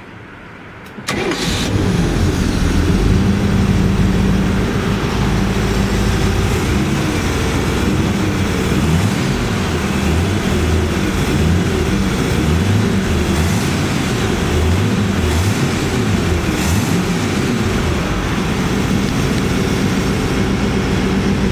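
Newly installed inboard marine V-engine starting about a second in, catching at once, then running steadily with small rises and falls in engine speed.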